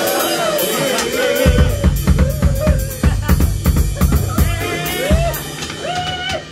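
Live rock band playing on a Pearl drum kit with guitars: high sliding melodic lines over cymbals, then the bass and steady drum strikes come in heavily about a second and a half in.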